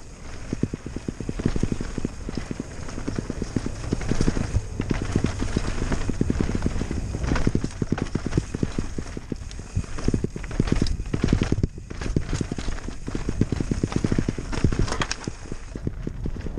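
Mountain bike clattering over rocks, roots and dry leaves on a singletrack descent: a fast, uneven stream of knocks and rattles from the tyres, chain and frame. A steady low rumble of wind buffets the microphone underneath.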